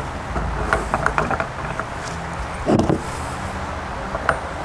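Small cast aluminium ingots being set down on a scale: a scatter of light metallic knocks and clinks, with one heavier thump a little under three seconds in, over a steady low hum.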